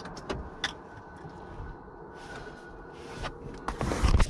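Small clicks and rustling from plastic interior trim and a 12-volt power-port socket being handled and pushed into place, with a louder bump near the end.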